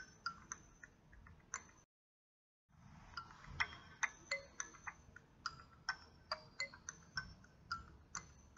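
Quiet background music of short, bright, plinked notes at varying pitches, unevenly spaced, each ringing briefly. It cuts out completely for about a second near the start.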